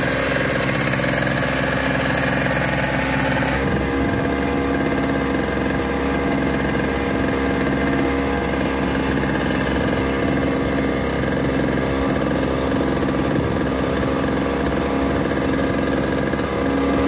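An engine running steadily on a fishing boat, a constant hum and drone; its tone changes abruptly about three and a half seconds in.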